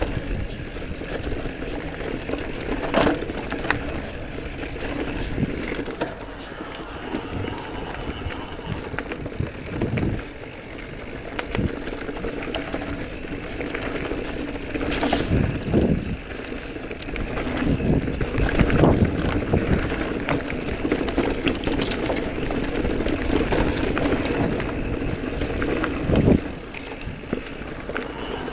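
Giant Trance E+ Pro 2 electric mountain bike ridden along a dirt trail: tyres rolling over the dirt and the bike rattling over bumps, with a steady hum underneath. Sharp knocks come now and then, the loudest a few seconds after the middle.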